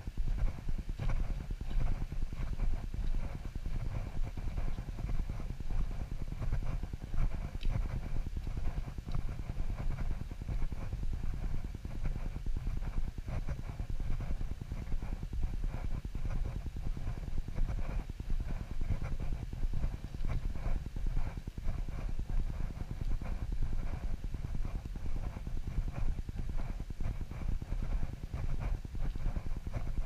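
Footsteps of a walker on a dirt path, a run of repeated thuds, over a steady low rumble on the microphone.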